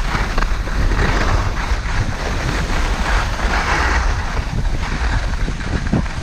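Wind rushing over the microphone of a skier going downhill, with the hiss of skis sliding and scraping over groomed snow; the hiss swells for a while a little past halfway.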